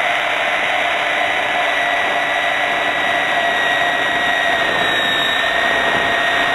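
Hurricane 550 R/C helicopter's motor, drivetrain and rotors heard from an onboard camera. A steady high-pitched whine runs over a rushing whir.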